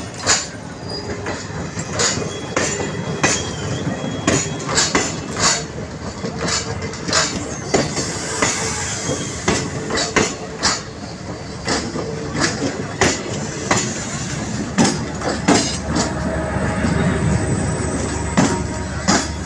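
A train rolling past at low speed: a steady rumble with the wheels clacking over the rail joints, one or two sharp clacks a second, and a faint wheel squeal.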